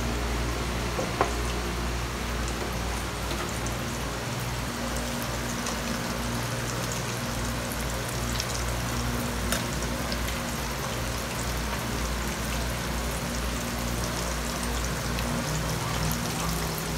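Coated shrimp deep-frying in oil in a wok: a steady sizzle, with a sharp click about a second in.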